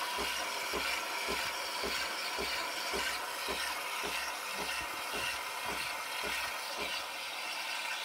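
De'Longhi Nespresso Lattissima Plus milk frother dispensing hot milk on its low-froth setting: a steady hiss with a low, regular pulsing about three times a second.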